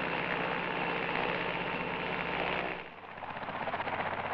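Westland Sea King helicopter in a hover, the rotor beating fast and steady over the turbine noise. The sound dips briefly about three seconds in and comes back with less deep rumble.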